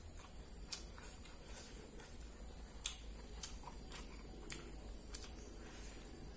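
Close-up mouth sounds of chewing crispy fried tofu stuffed with meatball: scattered sharp crunchy clicks, irregular and a second or so apart, over a steady low hum.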